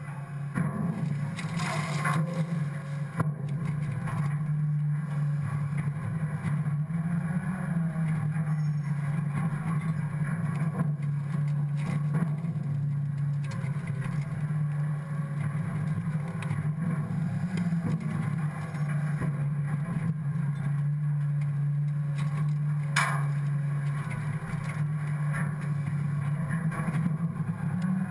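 Scorpion automated side-loader refuse truck running with a steady low hum from its engine and hydraulics while the automated arm lifts and empties a wheeled cart into the hopper and the packer blade sweeps the load into the body. Two sharp knocks stand out, one about two seconds in and one some twenty seconds later.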